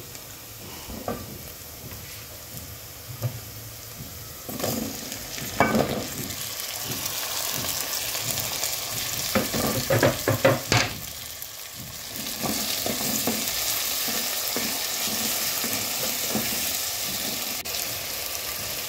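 Chopped onions and carrots frying and sizzling in an aluminium pot, stirred with a wooden spoon in short scraping, knocking strokes. About ten seconds in, diced tomatoes go in and the sizzle gets louder.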